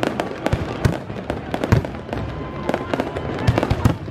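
Fireworks display in a rapid barrage: many sharp bangs and crackling reports, several a second, with deep booms among them.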